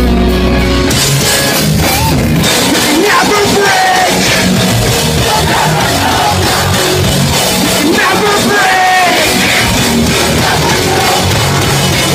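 Live pop-punk band playing loudly, with sung vocals over distorted guitars and drums. About a second in, the full band comes in with cymbals, after a held low note.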